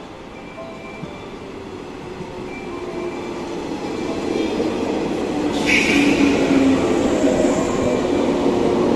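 JR West 117 series electric train approaching along the platform, its running noise growing steadily louder as it comes alongside. A short high hiss comes about halfway through.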